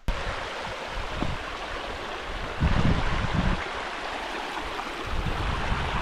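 Small snowmelt stream running over rocks: a steady rush of water. Wind buffets the microphone with low rumbling gusts about two and a half seconds in and again near the end.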